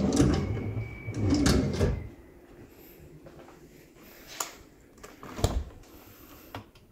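A kitchen drawer with a plastic cutlery tray rumbles along its runners, slid open and shut, with a faint squeal over the slide. A few sharp clicks and a clunk follow as a Siemens integrated dishwasher's door is released by its handle and pulled open.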